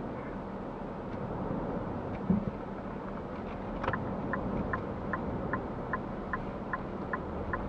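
Steady road and wind noise inside a moving car, with one thump about two seconds in. From about four seconds, the car's turn-signal indicator ticks evenly, about two and a half ticks a second.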